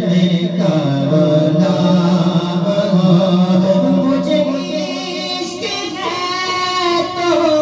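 A man singing a naat, an Urdu devotional song in praise of the Prophet, into a microphone, unaccompanied, in long held notes that bend slowly in pitch.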